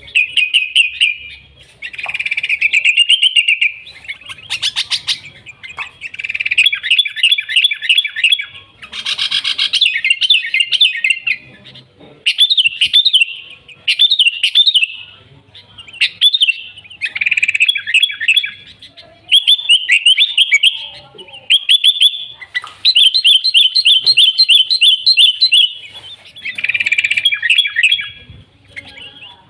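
Sooty-headed bulbul (kutilang) singing vigorously: loud bursts of quick, chirping notes, phrase after phrase with short pauses between them.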